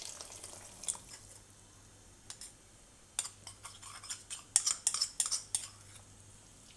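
Cornflour slurry poured into a wok of simmering soup, faint at first. From about three seconds in comes a quick run of clinks as a steel spoon scrapes and taps the plastic bowl to empty it.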